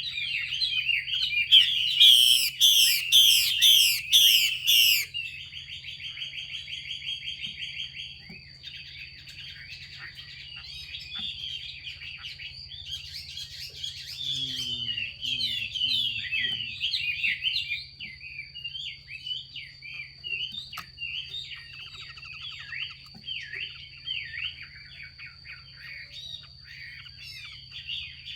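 Female Chinese hwamei (melodious laughingthrush) giving its harsh 'xùy' calls. A loud run of quick descending notes comes in the first few seconds, then a fast buzzy trill, then a steady stream of scratchy chirps.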